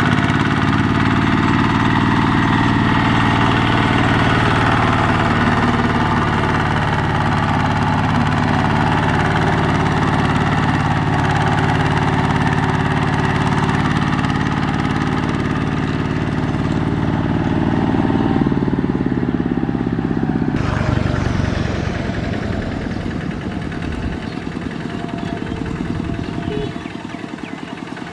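Single-cylinder diesel engines of two-wheel walking tractors running steadily under load as they pull trailers of rice sacks over rough dirt tracks. About twenty seconds in, the sound changes abruptly to a somewhat quieter engine.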